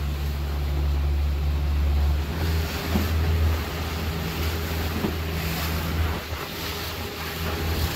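Boat engine running steadily with a low hum, over wind and the rush of water along the hull as the boat trolls.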